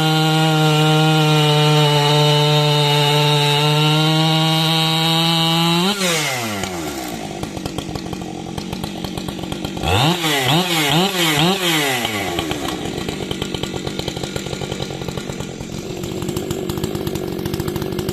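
Large 90cc-class professional two-stroke chainsaw held at steady full throttle for about six seconds, then the throttle is released and the engine falls to idle. A few seconds later it gets a few quick throttle blips, then settles back to idling.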